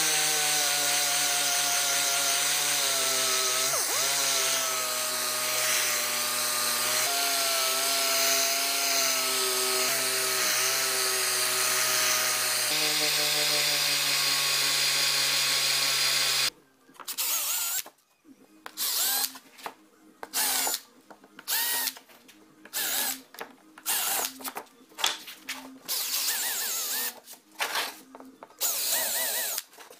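Random orbital sander running steadily on plywood for about sixteen seconds, then a cordless drill whirring in short bursts, about one a second, as it goes into plywood.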